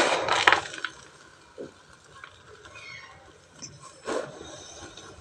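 Dry cement-and-ash chunks crunching and crumbling: a loud crunch through the first second, then a shorter, softer crunch about four seconds in.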